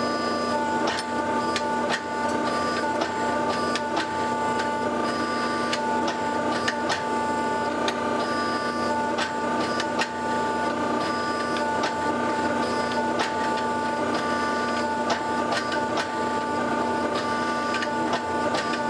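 Hydraulic forging press running with a steady motor-and-pump whine and irregular clicks while it squeezes a forge-welding-hot billet between its dies.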